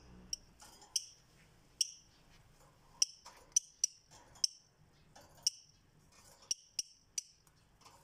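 Fischer's lovebird giving short, shrill, high chirps, about two a second at uneven intervals.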